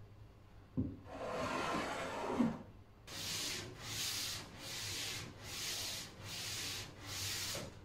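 Block plane being pushed along the edge of a wooden worktop to cut a chamfer: a light knock, one longer stroke, then from about three seconds in a steady run of rasping strokes, about one a second.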